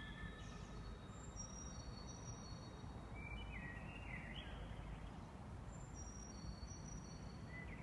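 Songbirds singing, faint high whistled notes, some held steady and stepping up or down in pitch, over a low steady rumble.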